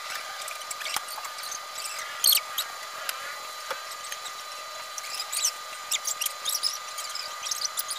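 Computer mouse being clicked and slid across the desk: a scatter of short, sharp clicks and scrapes, with one louder knock about two seconds in, over a steady high whine.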